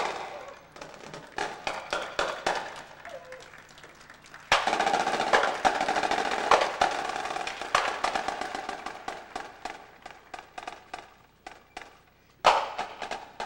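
Percussion ensemble playing on stage: quick strikes on snare drums and other drums, rolls and clicky wood-block-like hits. The full ensemble comes in loud and sudden about four and a half seconds in and then thins out, with a single sharp loud hit near the end.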